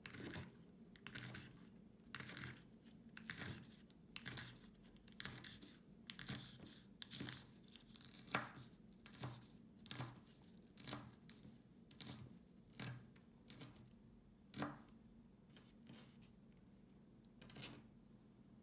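Short, crisp rasping strokes repeated about once a second, some in quick pairs, over a faint low hum.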